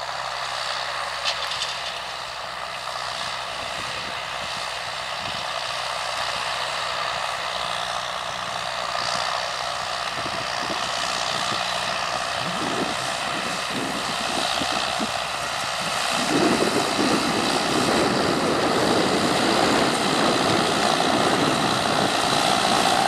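John Deere 5820 tractor's diesel engine running steadily under load as it pulls a Parmiter cultivator through the soil. It grows louder over the second half.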